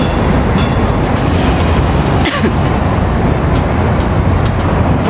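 Steady noise of road traffic heard while walking along a city street, with a brief hiss a little over two seconds in.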